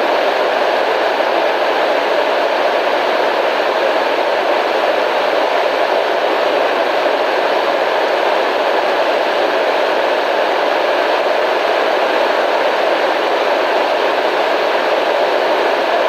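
Steady white noise, an even rushing hiss that does not change.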